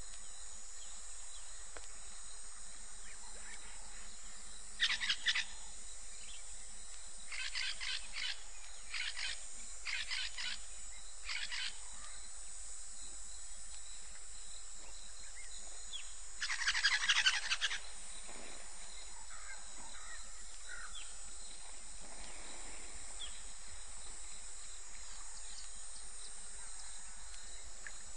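Steady high-pitched insect drone, with a handful of short, harsh animal calls. The longest and loudest call comes about 17 seconds in.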